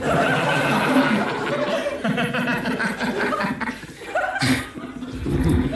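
An audience laughing, a dense spread of many voices that thins out about four seconds in.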